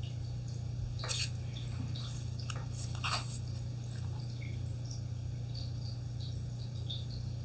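Hands handling a paper playing-card box: short crinkly rustles about a second in and again around three seconds in, over a steady low hum.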